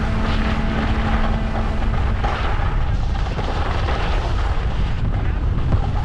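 Wind rushing over the action camera's microphone as the skier moves downhill, with the hiss of skis sliding over packed snow.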